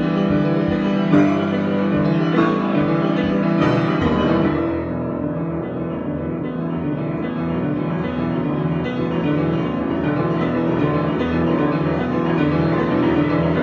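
Improvised instrumental music of sustained chords, with a higher, brighter part that drops away about four and a half seconds in, leaving softer low and middle chords.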